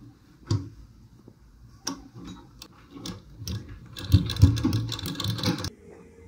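Himalya sewing machine stitching the edge of bedsheet fabric: a few separate clicks and knocks, then a rapid stitching clatter for about a second and a half from about four seconds in, which stops abruptly.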